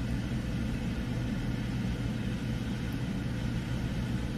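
Car engine idling, heard from inside the cabin as a steady low hum.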